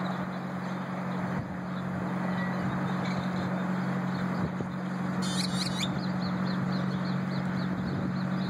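Birds chirping over a steady low hum and outdoor rushing noise, with a brief shrill sound about five seconds in.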